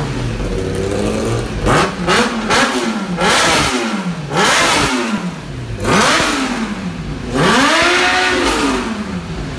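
2015 Kawasaki ZX-10R's inline-four engine, breathing through an Akrapovic full exhaust system, revved over and over in quick throttle blips that climb sharply and fall back. Near the end it gets one longer, slower rev that rises, holds and drops away.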